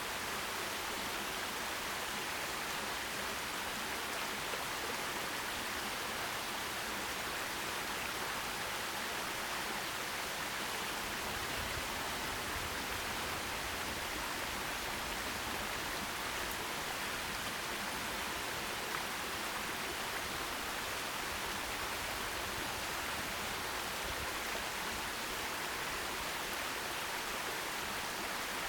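Forest stream water rushing and babbling over rocks, a steady even hiss with no change.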